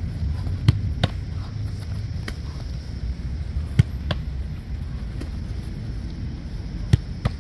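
About half a dozen sharp slaps of a football being struck and caught in goalkeeper gloves, the loudest near the middle and near the end, over a steady low rumble.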